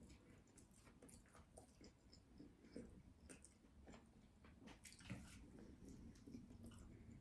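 Faint chewing and mouth noises of nuggets being eaten fast, with scattered small wet clicks and smacks.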